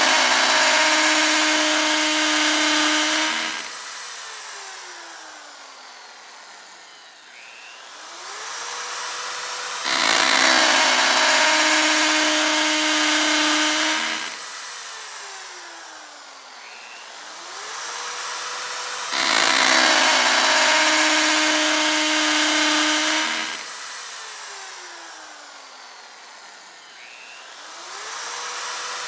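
Electric drill running at full speed in three bursts of about four seconds each. After each burst its motor winds down with a falling whine, then spins back up with a rising whine into the next burst.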